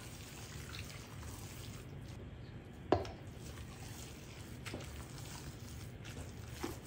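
Heavy wooden spoon stirring thick, wet tamale masa in a stainless steel bowl: soft, faint squishing over a low hum, with one sharp knock about three seconds in and a couple of fainter clicks later.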